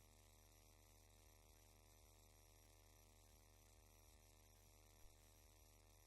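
Near silence with a faint, steady electrical hum and hiss, and one tiny click about five seconds in.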